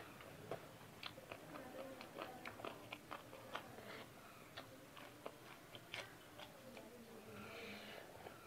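Close-up chewing and eating sounds of a person eating a raw salmon salad with fresh greens: soft, irregular crunches and mouth clicks, a few a second, with a faint breathy sound near the end.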